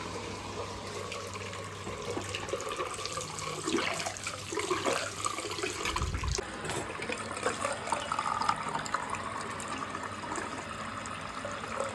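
Water running steadily from a tap, with a low thump about halfway through.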